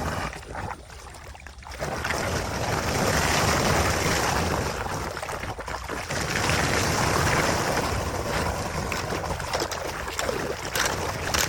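Steady rush of running water that dips quieter about a second in, then builds back and holds, with a few faint clicks near the end.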